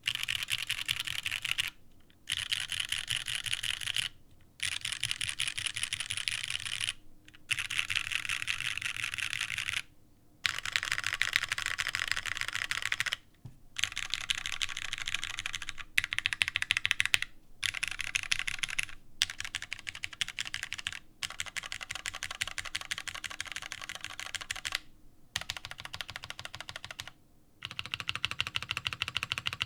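Fast typing on an O-ring-mounted custom mechanical keyboard with an aluminium plate, lubed Cherry Retooled Black linear switches and OG Cherry doubleshot keycaps. The keystrokes come in dense runs of one to three seconds, broken by brief pauses.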